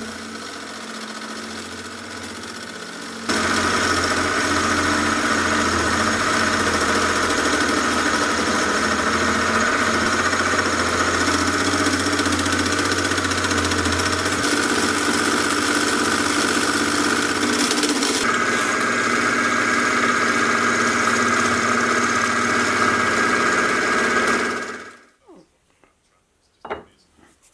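A mini milling machine's spindle running, then, about three seconds in, a face mill starts cutting steel: a loud, steady cutting noise with held ringing tones that goes on for about twenty seconds, then dies away near the end, leaving a few light clicks.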